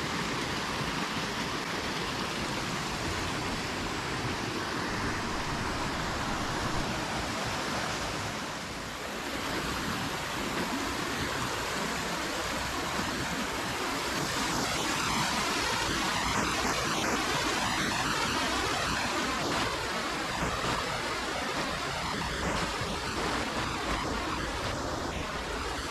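Waterfall and stream rushing steadily. It dips briefly about nine seconds in and swells louder for a few seconds from about fourteen seconds.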